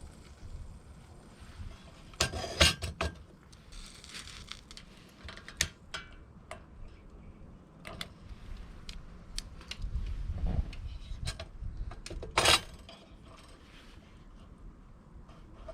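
Metal cookware and utensils clinking and clattering in scattered sharp clicks, loudest in a cluster about two to three seconds in and once more near twelve seconds, with a low rumble just past the middle.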